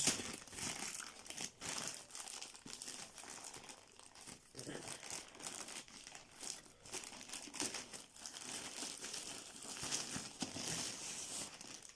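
Courier package being cut and torn open by hand, its wrapping crinkling unevenly throughout.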